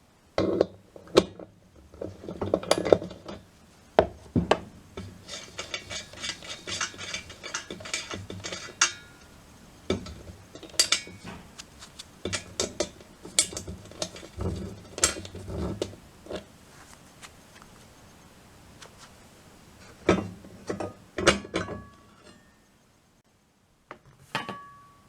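Irregular metallic clicks, knocks and clatter of the dryer's metal parts being handled as a Hitachi DE-N35FY clothes dryer is taken apart, with a couple of quieter pauses.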